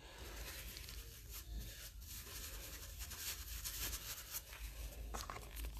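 Faint rubbing and scratching handling noise close to the microphone, with a few light clicks about five seconds in.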